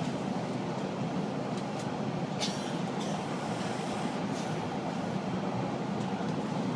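Toronto subway train running between stations, heard inside the car: a steady rumble and hiss of wheels on the track.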